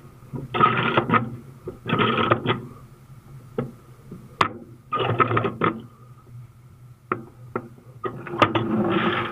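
Ratchet chain binder being cranked to tighten a tie-down chain: four ratcheting strokes, each a quick clatter of pawl clicks, with a few single sharp clicks between.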